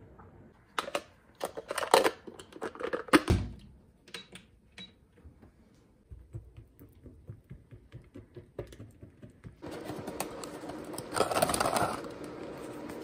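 Laptop keyboard typing, a quick run of sharp key clicks in the first few seconds that then thins out. Later come soft, evenly spaced taps and, in the last few seconds, a steady hiss that swells for about a second.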